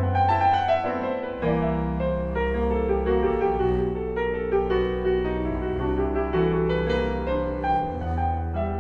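Piano and upright bass playing an instrumental passage: piano notes over a walking bass line, with no singing.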